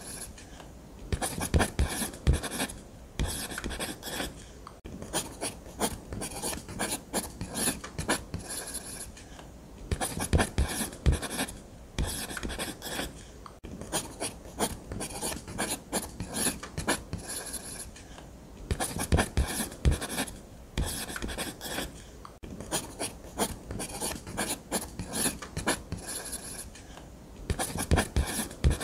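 Nataraj ballpoint pen scratching across paper in quick strokes, in runs of a few seconds broken by short pauses, with a few soft knocks.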